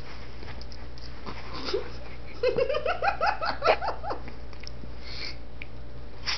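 Puppy yelping: one short cry, then a rapid run of short, high-pitched yelps, about seven a second for under two seconds, as the larger dog mouths its head in play after having its tail bitten.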